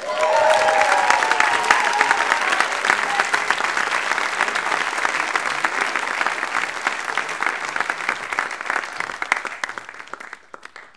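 Audience applauding, with a few cheering voices in the first few seconds. The clapping thins out and dies away near the end.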